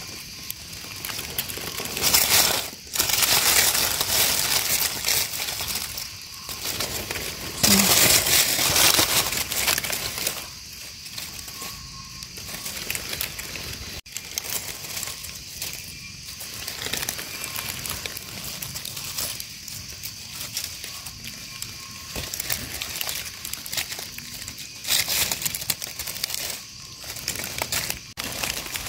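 Dry forest leaf litter rustling and crackling in irregular bursts, loudest in the first ten seconds and quieter and patchier after that.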